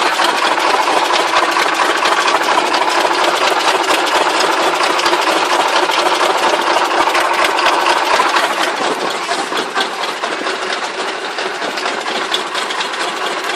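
Rice combine harvester's engine running, with a dense mechanical rattle of many rapid clicks. It eases a little about eight seconds in.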